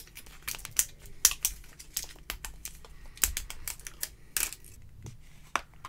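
Fingers and fingernails picking at the plastic wrap of a toy surprise egg: a run of small irregular clicks and crinkles.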